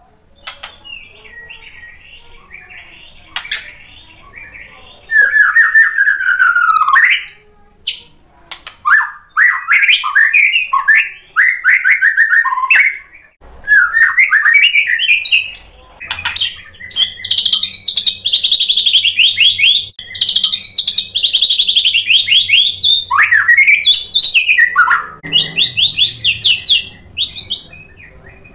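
White-rumped shama (murai batu) in full, eager song. Scattered fainter notes for the first few seconds give way to a loud stream of varied whistled phrases, rapid trills and fast chattering runs of repeated notes.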